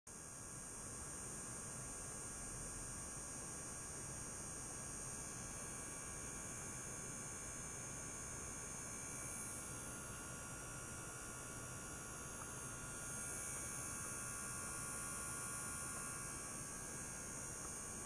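Small electric motor-driven liquid-circulation pump running steadily with a low hum and thin high-pitched whine, circulating water through tubing.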